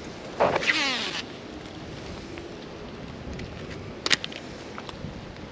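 A fishing cast: line whirring off the reel for about a second with a falling pitch as the spool slows. A sharp click follows about four seconds in.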